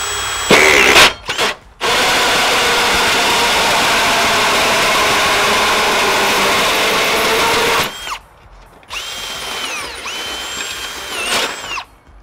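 Cordless drill driving a 4-inch hole saw through thin perforated metal soffit. After a brief spin it gives about six seconds of loud, rough cutting noise as the saw bites through the metal. Then the drill spins free for a couple of seconds, its whine rising as it speeds up and falling as it stops.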